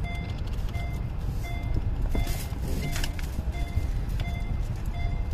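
Low rumble inside a car's cabin as it starts to move, with a short electronic beep repeating evenly about every two-thirds of a second at two alternating pitches, like a reverse warning chime.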